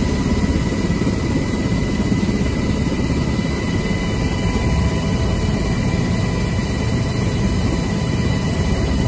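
UH-60L Black Hawk helicopter in flight, heard from inside the cabin: a loud, steady drone of engines and rotor with several constant whining tones over it.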